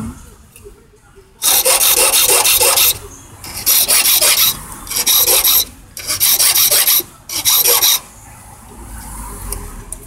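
Hand file rasping metal off a tubular key, in five runs of quick strokes between about one and a half and eight seconds in, cutting a deep notch for one of the lock's pins.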